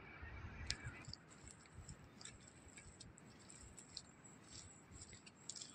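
Near silence: faint outdoor room tone with a few soft scattered clicks.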